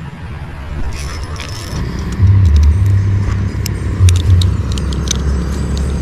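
Metal clicking and jingling of a fishing lip-grip and its clip being handled, several sharp clicks over a few seconds. A loud low rumble comes in about two seconds in and stays.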